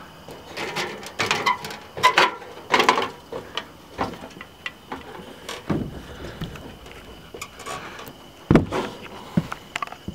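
Irregular clunks and knocks of someone climbing a metal ladder and stepping out onto an OSB plywood deck, busiest in the first few seconds, with one heavy footfall thump near the end.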